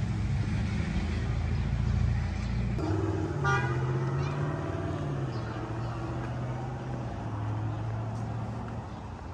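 Motor vehicle traffic: a low engine hum that shifts pitch a few times and fades near the end, with a short horn toot about three and a half seconds in.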